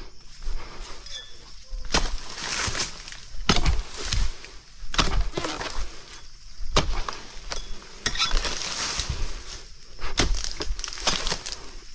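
Oil palm fronds being pruned with a dodos (pole-mounted chisel blade): a run of sharp cracks and knocks as the blade cuts into the frond bases. Two longer stretches of rustling and crashing sound as cut fronds fall and drag through the foliage.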